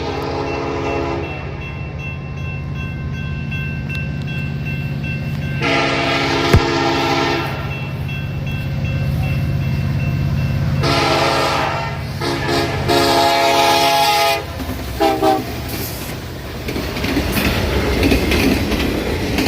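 Diesel locomotive's multi-chime air horn sounded in a run of blasts as a horn show from the engineer: one ending about a second in, another around six seconds with a sharp click inside it, then a longer run around eleven to fourteen seconds finishing in two short toots, over the steady rumble of the locomotive's engine. From about sixteen seconds the train's cars roll past with clattering wheel noise.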